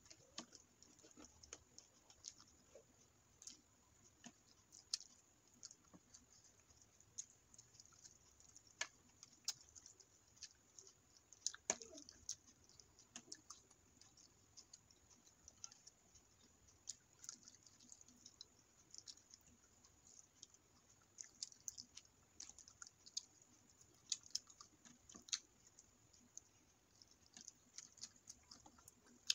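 Soft chewing of a mouthful of biryani and chicken curry, with irregular sharp wet mouth clicks scattered throughout.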